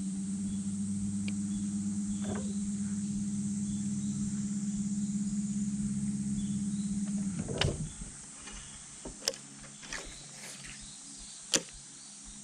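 A small electric motor hums steadily, then cuts off about seven seconds in. A few sharp clicks and knocks follow.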